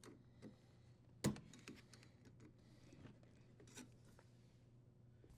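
Near silence with a few faint clicks and taps of small parts being handled, and one sharper click about a second in.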